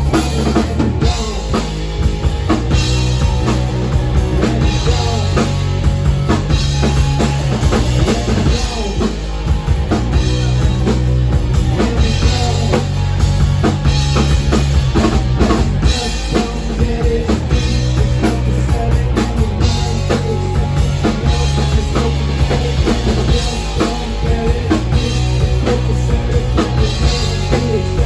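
Live rock band playing loud, with a drum kit's bass drum and snare driving a steady beat under electric guitar and a male singer.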